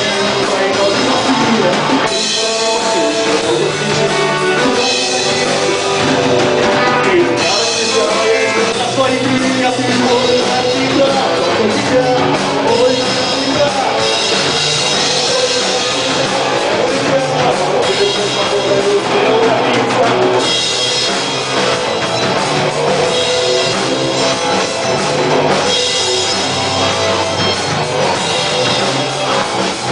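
A rock band playing live, with a drum kit and guitars.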